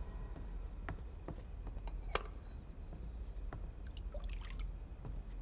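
A small porcelain bowl dipped into water: faint drips and light splashes with scattered small ticks, over a low steady hum.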